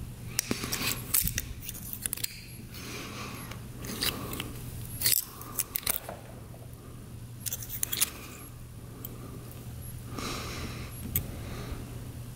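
Irregular light metallic clicks and short scrapes as a carburetor slide, its jet needle and the needle retaining plate are handled and shifted in gloved fingers, over a steady low hum.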